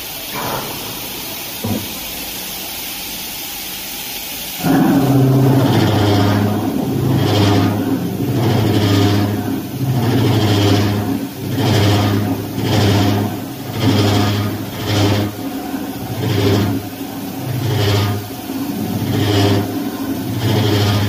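CNC double-spindle horizontal boring machine at work: a steady hiss of coolant spray, then about five seconds in a sudden loud cutting noise that swells and fades about once a second, with a low hum stepping between two pitches.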